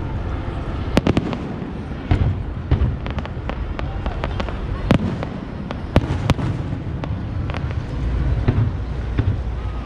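Aerial fireworks bursting overhead: a string of sharp bangs and pops at irregular intervals, the strongest about a second in and again near the middle, over a steady low rumble.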